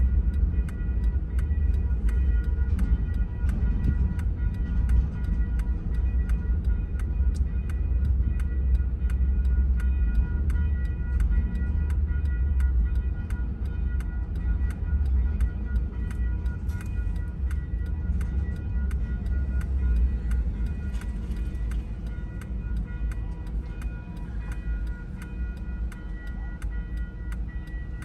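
Double-stack container freight train rumbling past a grade crossing, with the crossing bell ringing in quick, even strokes, heard from inside a car. The rumble eases off a little toward the end.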